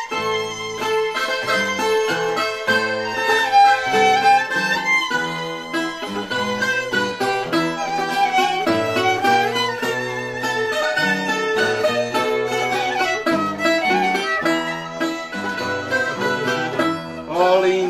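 Instrumental music: a fiddle melody over quickly plucked strings such as guitar or mandolin.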